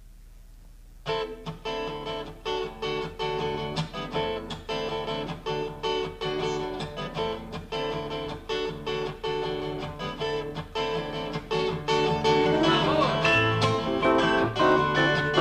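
Acoustic guitar strummed in a steady rhythm, starting about a second in as the opening of a song. About twelve seconds in more instruments come in and the music gets louder. A low steady hum runs underneath.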